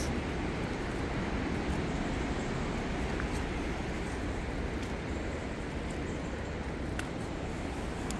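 Steady low rumble of ocean surf breaking on the rocks below, with a few faint ticks.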